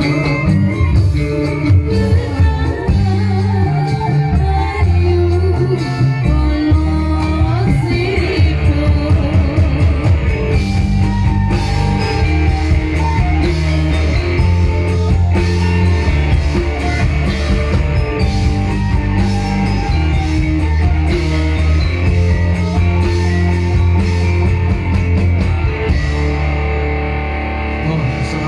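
Live ensemble music from Javanese gamelan metallophones with a drum kit and a strong bass line, with singing.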